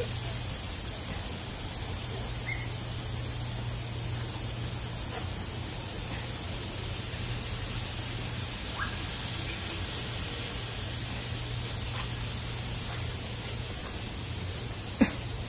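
Steady hiss of lawn sprinklers spraying, over a low steady hum, with a few faint short chirps and one sharp click near the end.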